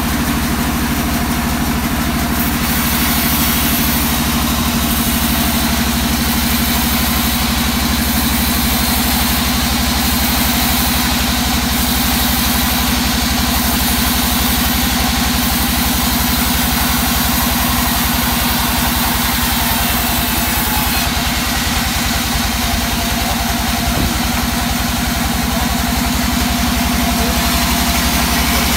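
Sawmill band saw running steadily while it rips a hard teak slab lengthwise. A constant low machine drone sits under the hiss of the blade cutting the wood.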